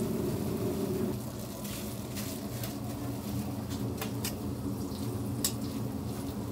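Hotteok frying in shallow oil on a flat griddle, a steady sizzle that drops away about a second in. A quieter steady background follows, with a few scattered light clicks and clinks.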